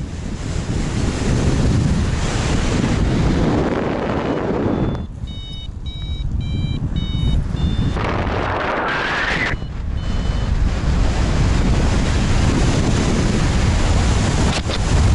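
Airflow buffeting the microphone of a paraglider pilot's harness-mounted camera. About five seconds in, the wind noise drops for roughly three seconds and a flight variometer's short, rapid beeps are heard at several pitches. The rush of air then swells back, rising in pitch, with a few more beeps.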